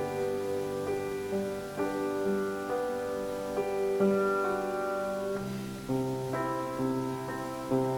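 Slow, soft piano music: sustained chords, each held for a second or so before the next.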